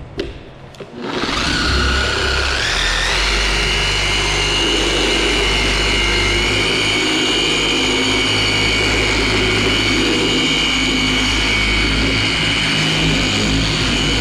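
Corded dual-action polisher with a wool pad running on an aircraft wing's painted skin, in a quick knockdown pass with polish to strip heavy oxidation. It starts about a second in, its whine stepping up in pitch over the next two seconds, then runs steadily and cuts off suddenly.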